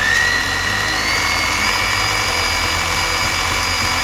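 Bosch GBH 8-45 D rotary hammer's electric motor running free with a steady whine, stepping up in speed about a second in and then holding.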